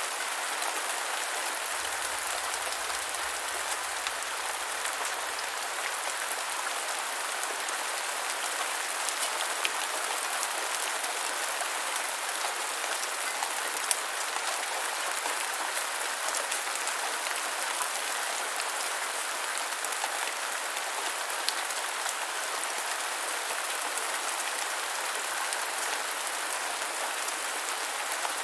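Light rain falling steadily, an even hiss with scattered sharper drop ticks.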